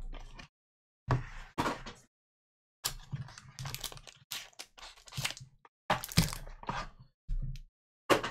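Trading-card pack and cards handled with gloved hands: short bursts of crackling, rustling and light knocks, in irregular bunches with gaps between, as the pack is opened and the cards are set down on the table.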